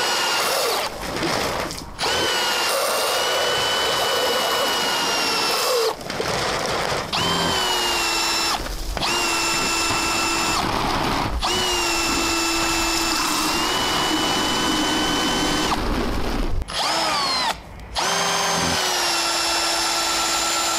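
Cordless drill driving a 3D-printed lobe water pump, its motor whining steadily at speed. It stops briefly several times and restarts, the pitch rising each time it spins back up.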